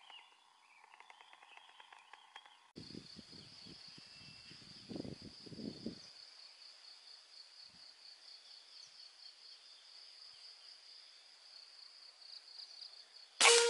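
Insects chirring in a steady, pulsing high drone, with a few low rumbles of wind or handling in the first half. Near the end comes one sudden loud crack with a short ring, the shot of an air rifle.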